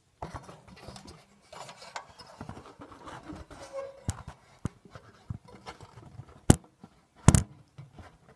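Handling noises at a workbench: irregular scraping and rustling, with two sharp knocks less than a second apart near the end, which are the loudest sounds.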